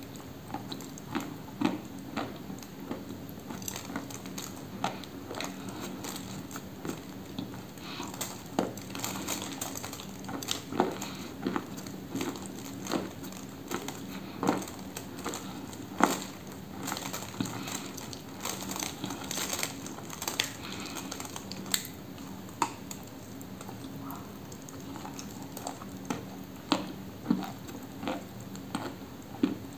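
Close-up biting and chewing of dry eating chalk: many crisp, sharp crunches at irregular intervals, over a steady low hum.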